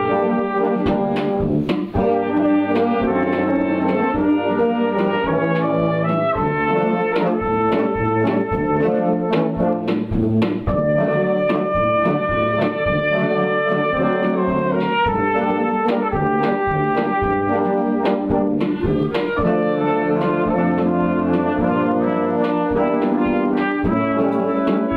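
Brass band playing a melody, with a flugelhorn carrying the solo line over held chords from saxophones, euphoniums and tubas, and light percussion strokes keeping time.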